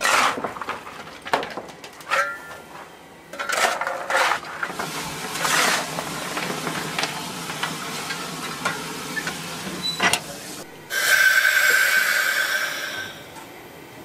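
In the cab of a 1928 steam locomotive, the coal shovel and firebox door clank and scrape as the firebox is fired, over a steady rush. About eleven seconds in, a loud hiss of steam with a high steady tone sets in and then fades away.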